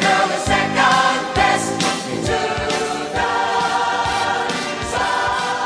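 Music playing: a song with singing voices over a steady beat of a little over two beats a second.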